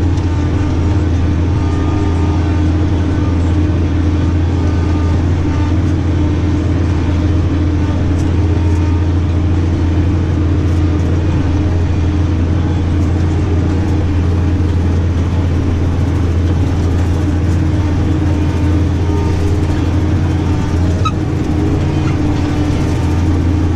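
New Holland tractor engine running at a steady working speed, a constant low drone heard from inside the cab.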